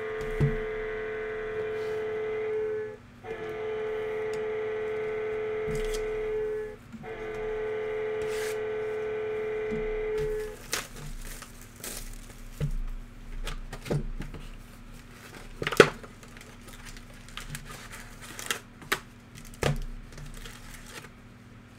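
Three steady buzzing tones, each about three seconds long with short gaps between them. Then scattered clicks, a sharp snap and crinkling as plastic wrap is torn off a trading-card hobby box.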